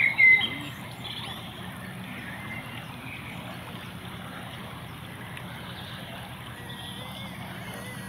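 Steady rush of a shallow river flowing past. A brief, loud, high call cuts in within the first half second.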